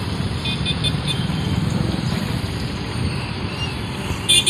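Steady low rumble of road traffic, with a few faint short toots. Music with a regular beat starts near the end.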